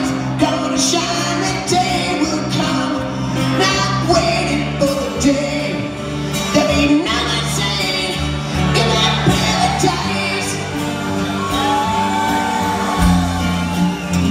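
Live rock band playing a song with a male lead vocal over acoustic guitars, keyboard and drums, amplified through a hall PA.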